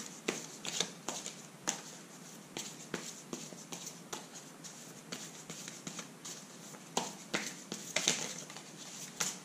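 Tarot deck being shuffled and handled by hand: irregular sharp taps and snaps of the cards, a little busier near the end.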